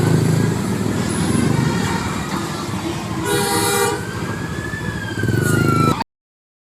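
A bus's diesel engine rumbling close by, with a short blast of its telolet horn lasting under a second about three seconds in. The sound cuts off suddenly about six seconds in.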